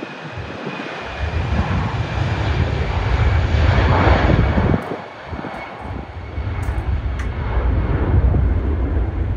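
Jet engines of a Lufthansa Airbus A320 at takeoff thrust, a roar that swells to its loudest about four seconds in as the airliner passes on its takeoff roll. Gusts of wind rumble on the microphone, easing briefly around five seconds in.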